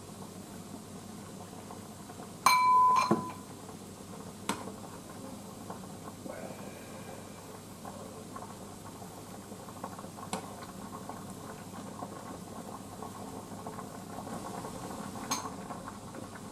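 Pot of onions and potatoes in water heating on the stove with a steady simmering hiss, and a ladle stirring and clicking against the pot now and then. About two and a half seconds in, a loud, short ringing tone sounds once.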